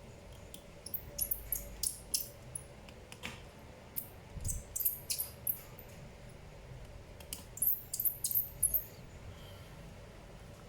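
Small sharp clicks and scratches of hard tools and small parts being handled, in three quick clusters.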